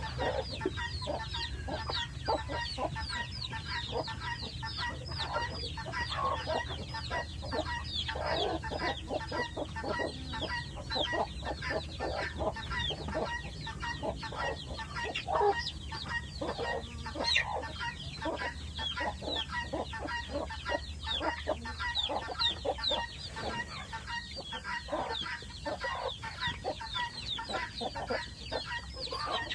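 A flock of chickens clucking and calling without a break, many short high calls overlapping with lower clucks.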